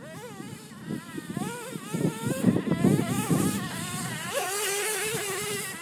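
Remote-control truck's motor whining, its pitch rising and falling as the throttle changes, then holding one steady pitch for about the last second and a half.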